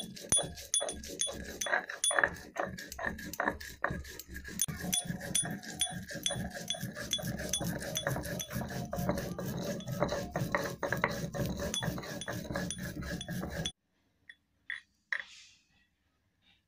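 Stone roller (nora) rubbing and scraping back and forth over a flat grinding stone (shil), grinding dry spices into powder in quick repeated strokes; it stops abruptly about 14 seconds in, leaving a few faint clicks.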